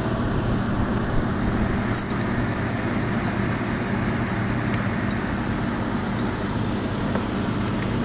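4-ton air conditioner outdoor condensing unit running, a steady mechanical hum with a low electrical drone, and a few light metallic clicks.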